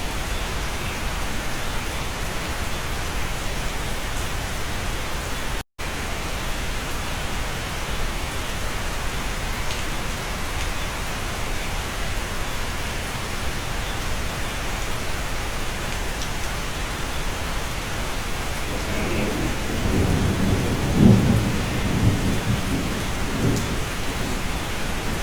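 Steady rain heard from inside a cabin, with a low rumble of thunder rolling in during the last few seconds and peaking about three-quarters of the way through. The sound cuts out for an instant about six seconds in.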